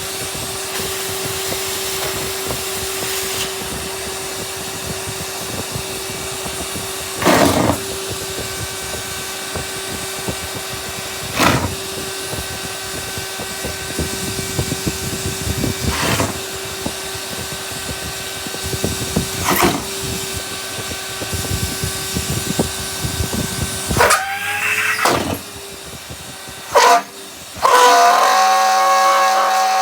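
Numatic Henry vacuum cleaner running with a steady motor whine while sucking up torn orange rubber gloves, with a brief loud burst every few seconds as pieces of glove are pulled into the hose. Near the end the motor note drops and shrill squeals come as the rubber catches in the nozzle and chokes the suction.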